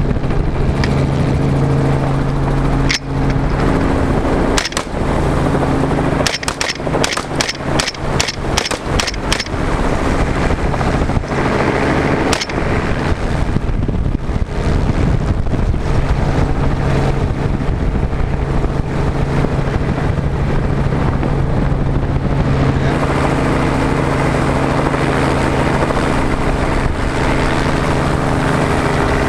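Helicopter engine and rotor drone heard from inside the aircraft, steady throughout, with a suppressed AR-style rifle firing about a dozen shots: two single shots early on, a quick string of roughly ten shots about six to nine seconds in, and two more shots around eleven and twelve seconds in.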